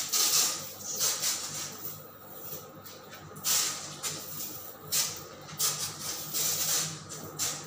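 Insecticide sprayer hissing in short bursts, roughly once a second, as cockroach spray is applied.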